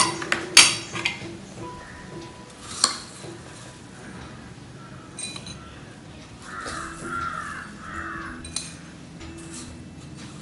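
A spoon scooping beaten rice (avil) from a ceramic bowl into a glass, with a few sharp clinks of the spoon against the dish and glass. A few harsh calls come in the second half.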